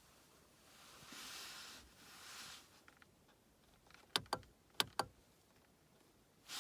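Two swells of hiss, then four sharp clicks in two close pairs.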